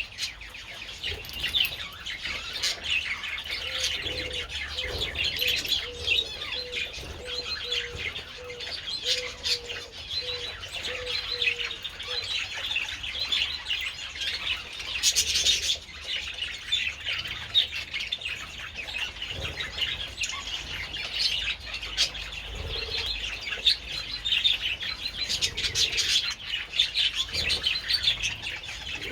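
A colony of budgerigars chattering and warbling nonstop in a dense overlapping chorus of chirps. A lower note repeats about once a second for several seconds early on, and there is a short burst of rustle about halfway through.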